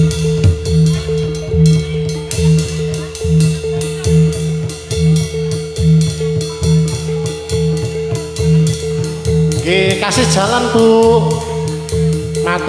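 Live jathilan trance-dance music: drums and percussion keep a steady, driving beat under a held tone, and a voice sings a sliding, wavering phrase from about ten seconds in.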